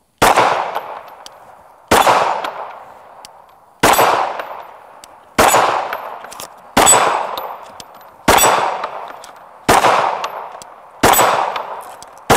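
Glock 19 Gen 5 9mm pistol firing eight slow aimed shots about one and a half seconds apart, each sharp report trailing into a long ringing decay as the rounds strike steel plate targets.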